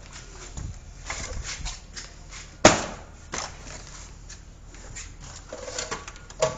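Handling noises: scattered clicks and knocks as pipe fittings and tools are picked up and set down, with one sharp knock about two and a half seconds in.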